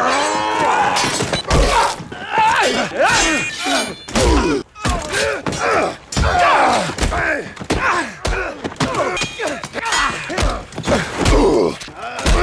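A rapid string of short human grunts and groans, one clip after another in different voices, with thuds and blows landing between some of them.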